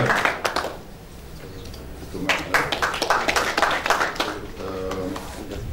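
Audience applauding, dying away within the first second, followed by a few scattered claps and voices.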